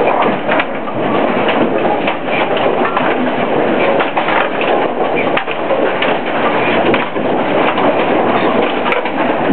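AMF 82-30 pinspotter running, its distributor carrying bowling pins: a steady, dense mechanical clatter full of small knocks and rattles.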